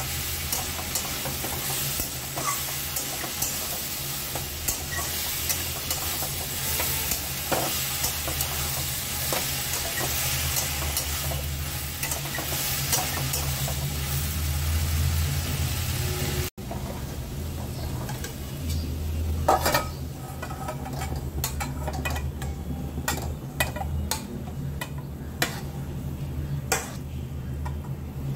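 Ash gourd and potato ghonto sizzling in a metal kadai while a wooden spatula stirs it, the last stir after ground cumin paste has gone in. About two-thirds of the way through, the sizzle drops back and sharp scrapes and knocks of the spatula against the pan take over as the dish is scraped out.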